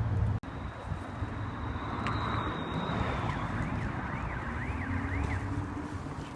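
An electronic siren wailing rapidly up and down, about twice a second, faint over steady city traffic noise.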